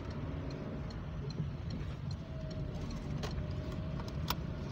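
A car driving, heard from inside: a steady low road and engine rumble, with faint regular ticking and two sharper clicks in the second half.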